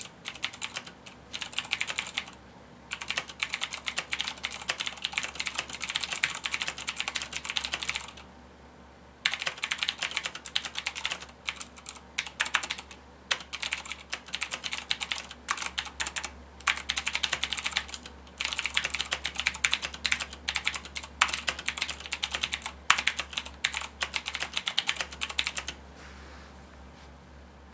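Typing on a Razer BlackWidow Tournament Edition tenkeyless mechanical keyboard with Cherry MX Blue switches: rapid clicky keystrokes in runs of several seconds. There is a short pause near the start, another about a third of the way in, and the typing stops shortly before the end.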